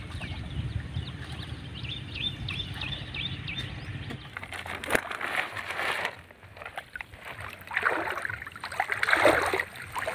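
Pond water sloshing and splashing in irregular bursts as a man wades among water lilies and works a fishing net, loudest in the last couple of seconds. A low rumble and a short run of high chirps sit under the first four seconds.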